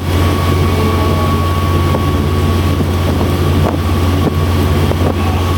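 Steady drone of a boat's engine with wind buffeting the microphone, a thin steady whine sitting above the low hum.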